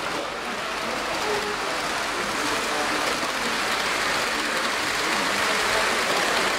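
Indistinct murmur of a crowd talking in a large hall, an even hiss-like babble that builds gradually in loudness.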